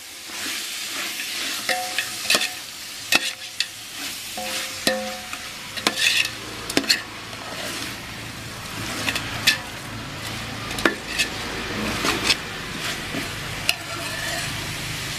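A long perforated metal ladle stirring chunks of turkey meat in a large metal pot, knocking and scraping against the sides with many sharp clicks, while the meat sizzles steadily underneath.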